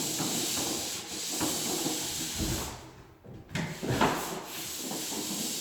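Dried drywall joint compound being sanded by hand: rough back-and-forth scraping strokes that stop briefly about three seconds in, then resume with a short knock.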